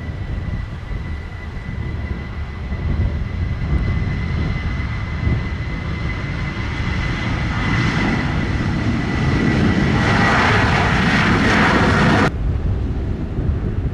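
Sun Country Boeing 737's jet engines spooling up for the takeoff roll: a steady high whine over a low rumble, swelling into loud engine noise over the last several seconds. It cuts off suddenly near the end, leaving only a low rumble of wind on the microphone.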